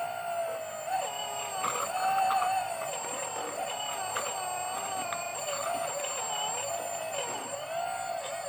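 Electric hydraulic pump motor of a radio-controlled excavator whining steadily, its pitch sagging and recovering several times as the hydraulics take load, with a thin high electronic whine above it.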